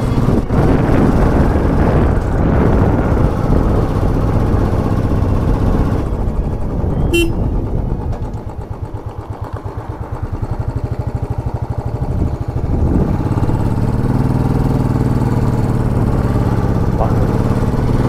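Royal Enfield Classic 500's single-cylinder engine running on the move. About eight seconds in it eases off to a slow, even thumping for a few seconds, then picks up again and runs steadily.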